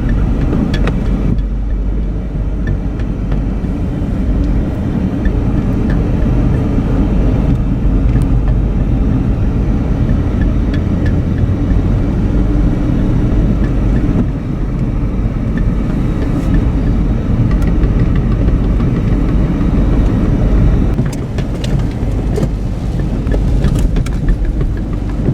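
Car driving at steady speed, a continuous low rumble of engine and road noise, with scattered light ticks, more of them near the start and the end.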